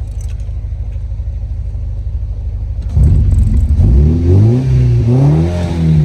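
1993 Nissan 240SX's engine idling steadily, then revved from about three seconds in: a few throttle blips, the pitch rising and falling each time.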